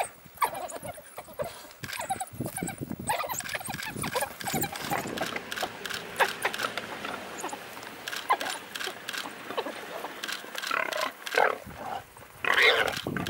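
A pack of African wild dogs scuffling and scrabbling in loose dirt as they dig out and attack a warthog in its burrow. There are many short scrapes and scattered high squeals and yelps, with a loud squeal near the end.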